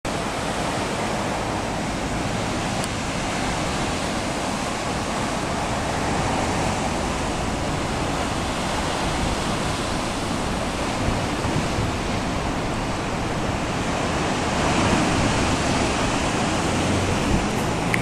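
Pacific Ocean surf breaking and washing over a rocky shore: a steady rush of water that swells a little in the last few seconds.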